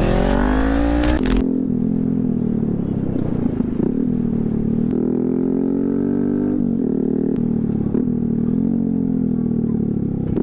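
Motorcycle engine running under way, rising in pitch as it revs up. About a second in the sound changes abruptly, and then the engine holds a fairly steady, slightly wavering pitch with a few brief dips.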